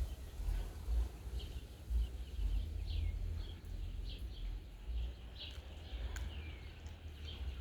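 Small birds chirping, with short, scattered calls over a low, uneven rumble.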